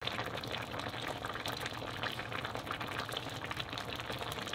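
Thick red chili braising sauce bubbling and popping at a steady simmer in a pot of braised cutlassfish, a dense run of small crackling pops.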